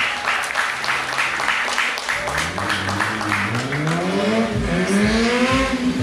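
Motorcycle engine revved hard twice, its pitch climbing, dropping and climbing again, after a couple of seconds of idling with clapping.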